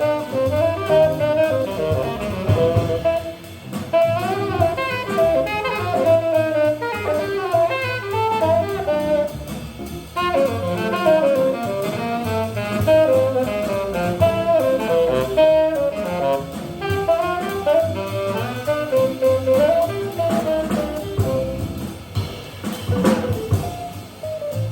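Small jazz combo playing a medium-tempo tune: a tenor saxophone improvising a running melodic line over walking bass and drum kit with guitar comping.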